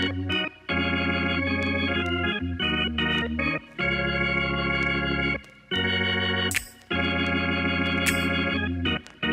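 Background music of sustained chords over a steady bass, dropping out in short breaks every second or two.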